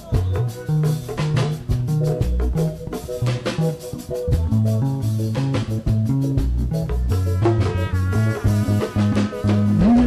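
Upbeat band music: drums keep a steady beat under a repeating bass line, and a melody line comes in near the end.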